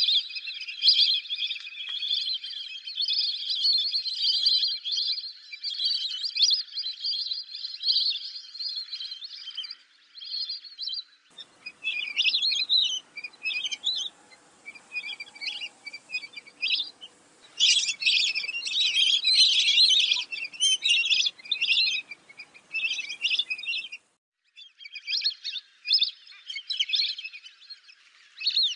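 Lesser whistling ducks calling as a flock: many high, rapid whistles overlapping in a constant chatter. Partway through, the calling comes in separate bursts over a faint hiss, then turns dense again after a brief gap.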